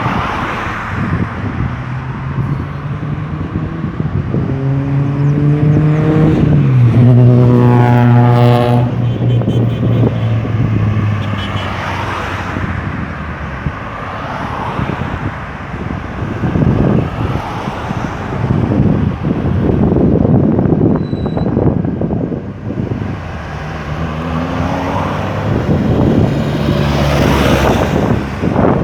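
Steady highway traffic with cars passing by on the road surface. About six or seven seconds in, a vehicle with a strong engine hum passes close, its pitch dropping as it goes by; this is the loudest moment, and another engine passes near the end.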